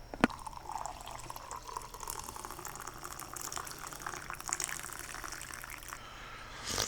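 Liquid being poured while making French-press coffee, splashing and gurgling steadily for about six seconds. A sharp click comes just before the pour starts.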